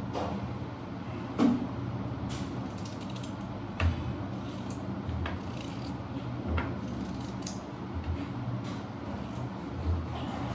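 A few scattered knocks and clicks over a steady low hum, the loudest two about one and a half and four seconds in.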